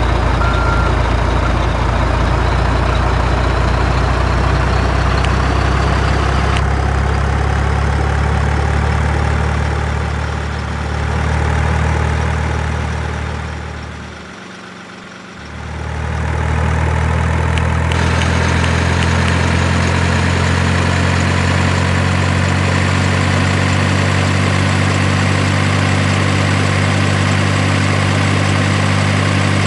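Heavy diesel engine of a construction vehicle running steadily. About halfway it drops away for a couple of seconds, then comes back.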